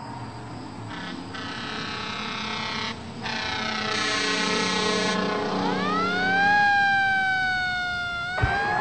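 A sustained pitched sound: a steady chord-like drone swells, then a siren-like tone rises steeply and slides slowly down in pitch, cutting off abruptly with a click near the end.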